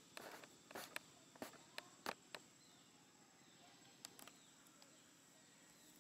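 Quiet outdoor ambience: a handful of faint, sharp clicks and crackles in the first two and a half seconds and a couple more about four seconds in, over a thin, steady high tone.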